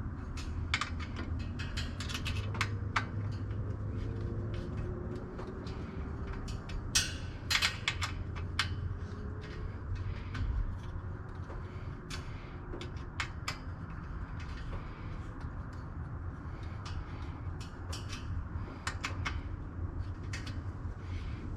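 Scattered clicks, clanks and rattles of hardware being handled and fitted, loudest in a cluster about seven to eight seconds in, over a steady low hum.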